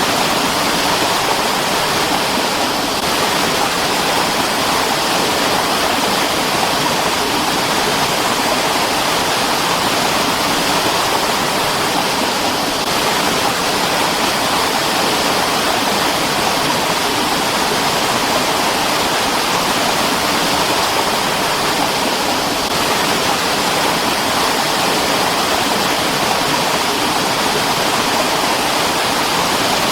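Mountain stream running steadily: an even, unbroken rush of water.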